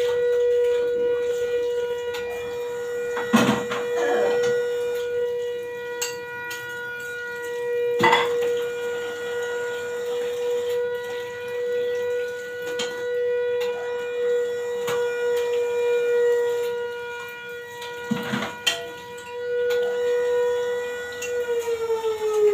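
A siren sounds one long, steady tone, then winds down in pitch near the end. Dishes clink a few times at the sink.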